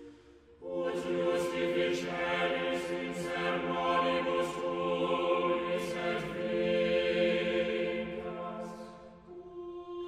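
Music of a choir singing slow, held chords, starting about half a second in and fading briefly near the end.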